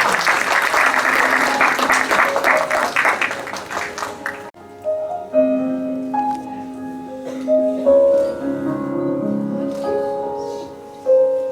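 Audience applauding for about four and a half seconds, then the clapping cuts off suddenly and a slow piano melody of single held notes plays.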